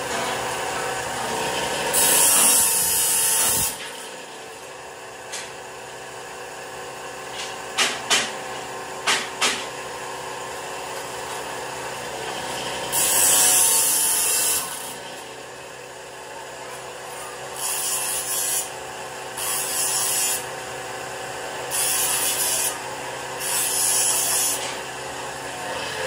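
Belt-driven abrasive cut-off saw running steadily, its wheel grinding through steel bar stock in six short cuts: one near the start, one about halfway, and four in quick succession near the end. A few sharp metallic knocks come between the first and second cuts.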